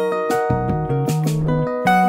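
Background music carried by plucked string notes, a new note every fraction of a second.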